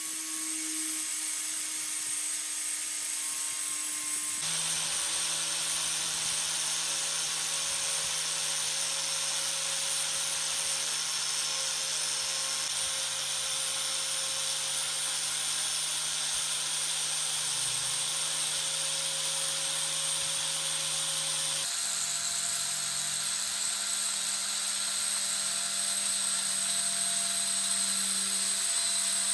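Electric rotary sander with a foam-backed sanding disc grinding the coating off a steel scissor blade: a steady high motor whine over a gritty hiss. The whine's pitch jumps abruptly twice, at about four and a half seconds and at about twenty-two seconds.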